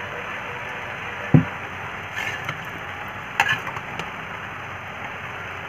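Steady hiss of a gas burner under a steel wok of heating mustard oil. A dull knock comes about a second in, and two light sharp clicks of handling follow later.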